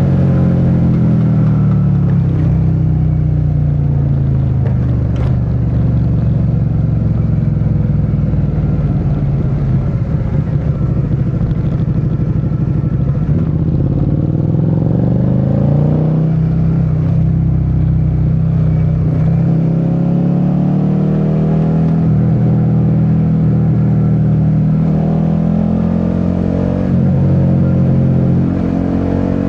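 Suzuki SV650's 90-degree V-twin engine under way: the engine note drops over the first few seconds, runs low for a while, climbs as the bike accelerates about halfway through, then holds steady at a cruise with a brief dip near the end.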